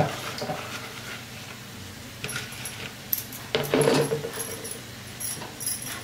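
Steel slotted spatula clinking and scraping in a pan of mashed spiced potato filling as chopped coriander is stirred in: a few scattered light metal clicks, with one louder scrape lasting about half a second a little past halfway.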